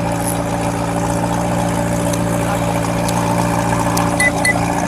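A vehicle engine idling steadily, with two short high beeps about four seconds in.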